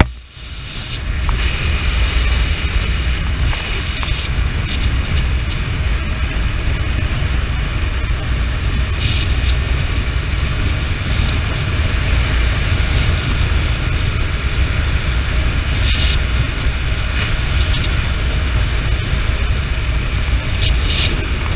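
Steady wind rush buffeting the camera microphone on a Honda CB motorcycle in motion, with the bike's engine and road noise underneath. The noise drops away right at the start and builds back within a second or two.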